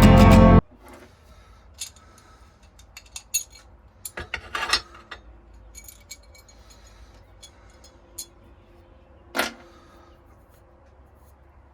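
Guitar music cuts off about half a second in. After it come scattered light metallic clinks and taps: hard objects being handled and set down on a workbench, with a small cluster a little past four seconds and a single sharper clink near nine and a half seconds.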